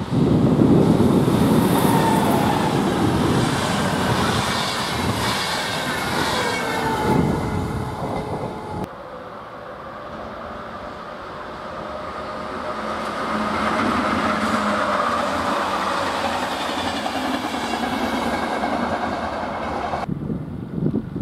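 Electric-locomotive-hauled passenger train running past on the rails, wheels clattering over the track with thin high wheel squeals. About nine seconds in the sound cuts to a quieter, steady hum of a more distant train, and changes abruptly again near the end.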